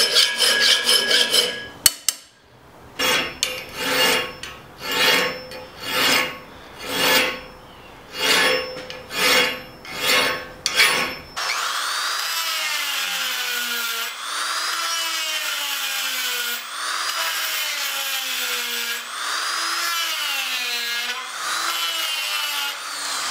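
A hand file rasping across the steel guard of a knife clamped in a vise, in quick strokes at first and then about one long stroke a second. About eleven seconds in the filing gives way to a handheld rotary tool grinding the same steel, its motor whine rising and falling in pitch as the bit bites and eases off.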